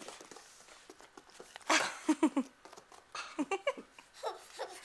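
A baby giggling in short bursts of laughter, the loudest burst about two seconds in, with smaller giggles toward the end.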